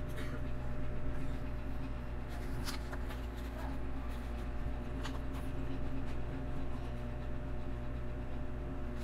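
LEGO bricks being handled and pressed together: scattered light clicks and rustling, several seconds apart, over a steady low electrical hum.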